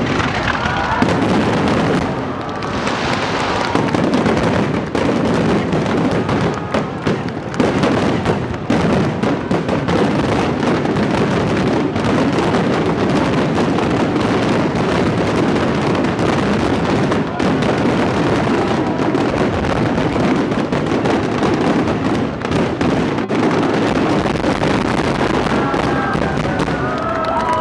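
Aerial fireworks going off in a rapid, continuous barrage of bangs and crackling.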